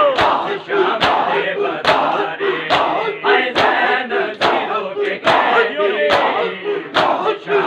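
Matam: a crowd of mourners slaps bare chests with open hands in unison, a loud, steady beat a little faster than once a second. Between the beats, many men chant loudly together.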